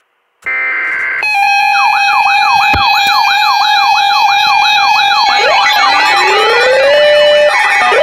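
Several weather-alert radios sounding their alarms together for a severe thunderstorm warning: a short burst of data tones, then overlapping steady alert tones and fast rising-and-falling siren sweeps. More sweeping alarms join in about five seconds in.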